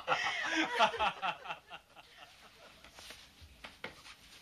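A man's voice chuckling briefly, then a few faint taps and clicks.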